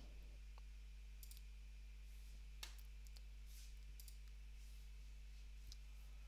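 A few faint computer mouse clicks over near-silent room tone with a low steady hum.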